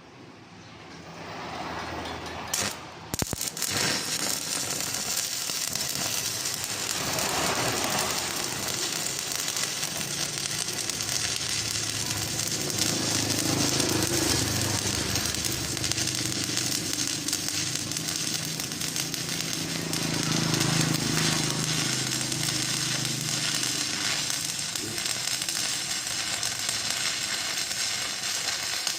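Welding arc crackling and sizzling steadily, starting with a couple of sharp clicks about three seconds in.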